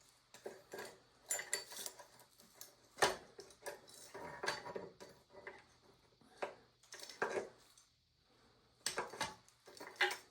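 Irregular metal clinks and clanks as a used chainsaw bar and chain are handled for fitting to a chainsaw, with the loudest clank about three seconds in.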